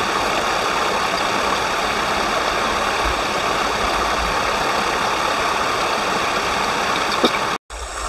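Mountain stream water rushing steadily, then cutting off abruptly for a moment near the end.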